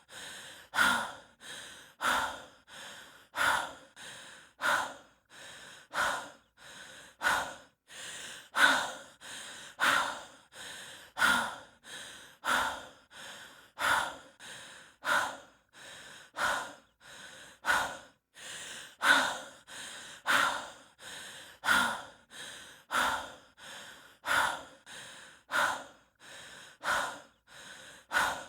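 A person breathing heavily in a steady rhythm, as a hiker does from the exertion of walking uphill. A louder breath alternates with a softer one, about one pair every second and a bit.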